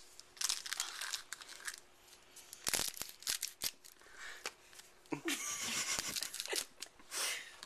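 Foil trading-card booster pack wrapper being torn open and crinkled by hand, with a few sharp clicks about three seconds in.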